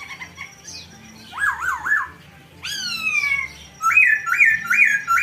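Poksay jongkong song: loud whistled phrases. First come three quick rising-and-falling notes, then a run of falling slurred glides, then three repeated upslurred whistles near the end.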